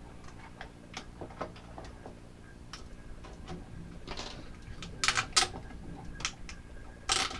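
Small clicks and taps of a small screwdriver and fingers working on a plastic controller housing and its wire terminals, with two or three louder short scrapes about five seconds in and near the end.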